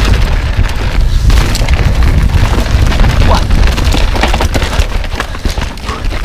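Wind buffeting a pole-mounted action camera's microphone on a fast mountain bike descent, a loud low rumble, with the tyres on loose dirt and the bike rattling over bumps in many small clicks and knocks.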